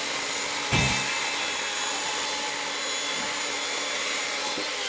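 Electric chainsaw motor running steadily with a whine. A single thump comes about three-quarters of a second in.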